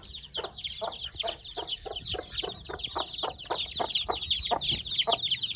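A brood of young chicks peeping without pause, with many high, falling cheeps overlapping. Under them a mother hen gives short clucks, several a second.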